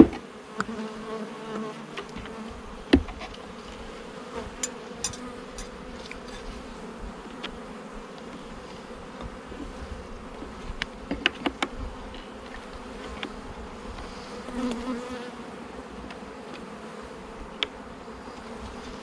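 Honeybee colony buzzing steadily around an open hive, with scattered sharp knocks and clicks as the hive's frames and parts are handled, the loudest right at the start and about three seconds in.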